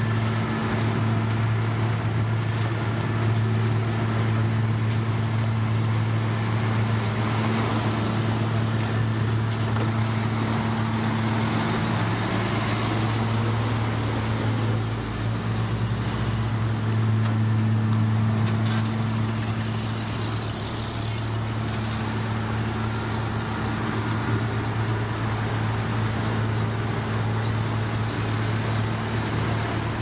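Diesel engines of a paving machine and a dump truck running steadily with a deep, even hum while laying base course. Around the middle another engine rises briefly in pitch.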